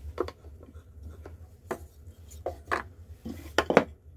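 Wooden parts of a handmade model machine gun being handled and set in place, knocking against the wooden body and the tabletop: a few scattered wooden knocks, the loudest pair near the end.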